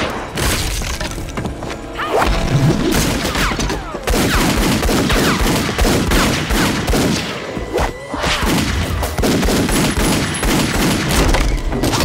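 Film fight sound effects: a rapid run of gunshots mixed with blows and thuds, the impacts coming thick and fast throughout.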